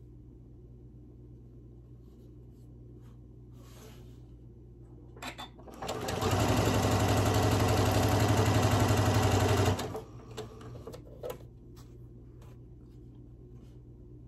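Janome M7 sewing machine running at speed for about four seconds, stitching a seam through cotton patchwork pieces, starting about six seconds in and stopping abruptly. A few light clicks of fabric handling come before and after.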